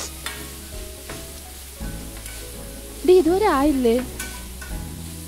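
Instant noodles sizzling as they are stirred with a spatula in a steel kadai, the spatula clicking against the pan a few times. About three seconds in, a voice holds a wavering note for about a second over soft background music.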